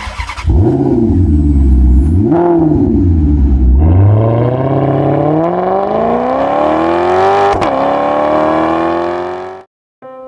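A car engine starting up and being revved once, then accelerating with its pitch climbing steadily. There is one brief drop in pitch, like a gear change, about seven and a half seconds in, and the sound cuts off suddenly near the end.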